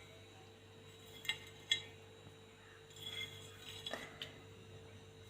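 Kitchen utensils clinking against a plate: two sharp clinks about a second and a half in, then a run of lighter clinks and taps.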